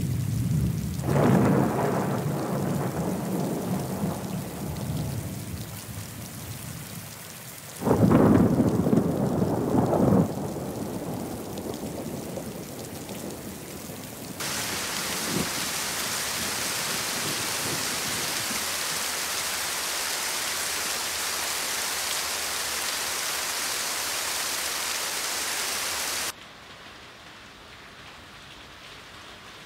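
Thunder rumbling in a storm, with the loudest peal about eight seconds in. From about fourteen seconds in, steady rain hisses, then cuts off suddenly near the end.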